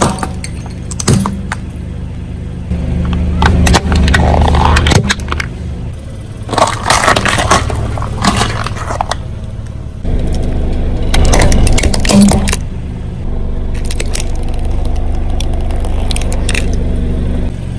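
A car tyre rolling slowly over a series of small objects, crushing them with sharp cracks, crunches and scraping over a steady low engine hum. The crushing comes in several separate passages rather than as one event.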